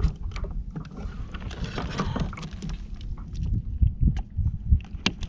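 Handling noises aboard a fishing kayak: scattered knocks and clicks against the hull and gear as a caught fish is handled, over a low rumble of wind on the microphone.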